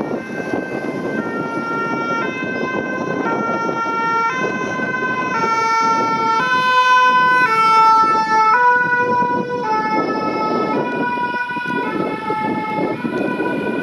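Two-tone siren of a Renault Master VSAV fire-brigade ambulance, alternating between a high and a low note about once a second. It grows louder as the ambulance approaches, is loudest about halfway through as it passes, then drops in pitch as it moves away, over the ambulance's engine and traffic noise.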